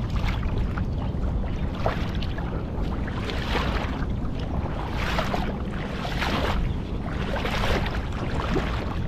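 Water splashing and sloshing in irregular surges about every second or so, over a steady low wind rumble on the microphone.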